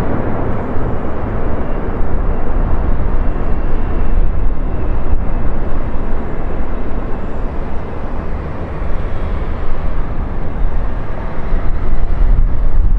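Airbus A350-900 airliner landing, its Rolls-Royce Trent XWB jet engines making a loud, steady rumble as it crosses the threshold, touches down and rolls out.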